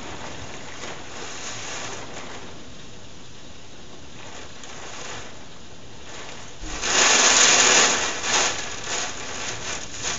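Heavy thunderstorm rain hissing steadily. About two-thirds of the way in, a sudden loud rushing burst lasts about a second, then dies down in fluttering surges.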